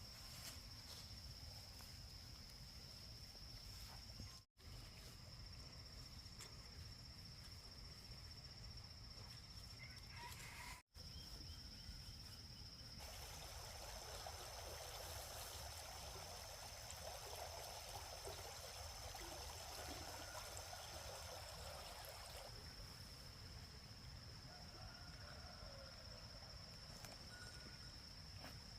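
Faint rural ambience with a steady, high-pitched insect drone. A stretch of soft hiss comes in the middle, and the sound cuts out briefly twice.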